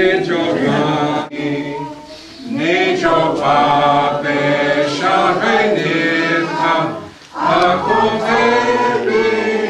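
Congregation singing a hymn in Navajo, many voices together, in long held phrases with short breaths between them.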